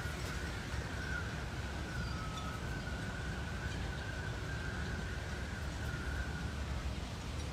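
Outdoor background: a steady low rumble with a faint, slightly wavering high whine that fades out near the end.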